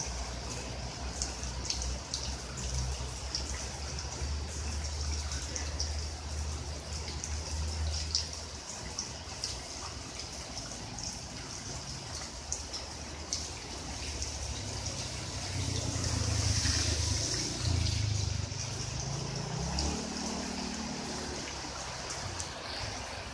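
Steady monsoon rain falling on floodwater and garden plants: an even hiss with a patter of drops and dripping. A low rumble swells about two-thirds of the way through and then falls away.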